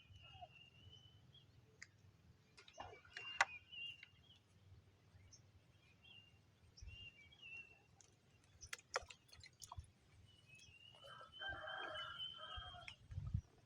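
Faint bird calls: a few short high calls and one longer call of about two seconds, about eleven seconds in, with a few scattered clicks.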